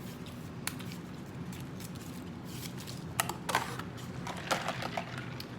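Food packaging being handled: scattered sharp clicks and short crinkles from sauce cups or condiment packets, loudest around the middle, over a steady low hum.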